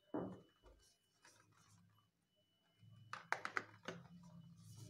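Hands handling a cardboard product box and its mailer carton: a soft knock at the start, then a quick cluster of sharp crinkling clicks about three seconds in.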